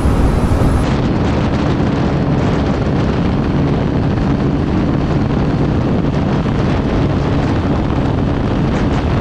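Wind buffeting the microphone of a 125 cc single-cylinder motorcycle running flat out in top gear at around 100 km/h. It is a steady, dense rush with the engine's low drone underneath.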